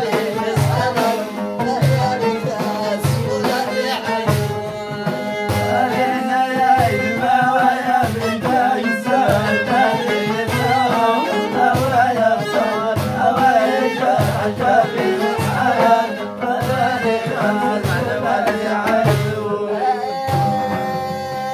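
Amazigh folk music from the Moroccan Middle Atlas: an upright-bowed violin and a loutar lute play a wavering melody over a hand drum beating about twice a second, with a man singing. Near the end the melody settles into long held notes.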